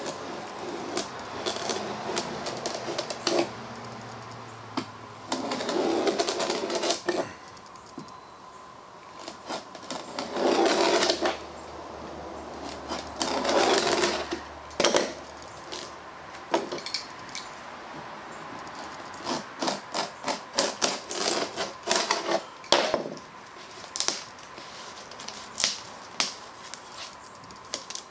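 A hand-held blade trimming overhanging veneer along the edge of a panel bonded with contact cement: several scraping strokes of about a second each, then a quick run of sharp clicks and taps.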